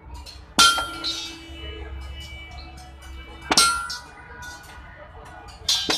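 Metal struck hard three times, about three seconds apart, each strike leaving a long clear ringing tone.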